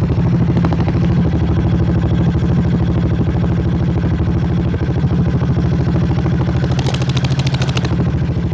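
Budget dirt bike engine idling steadily through its custom muffler. About seven seconds in, a quick high rattle of rapid clicks lasts about a second.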